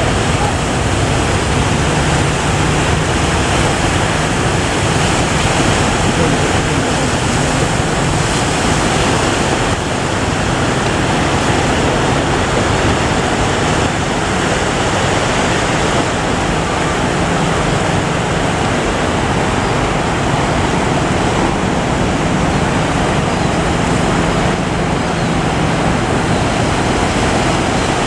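Large ocean waves surging and breaking: a loud, steady noise of surf.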